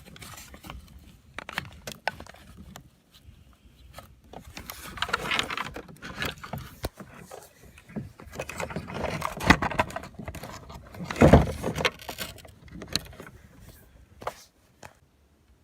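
Hands working on a truck door panel: scattered plastic clicks, rattles and scrapes as clips and connectors are worked loose, with one sharper knock about 11 seconds in.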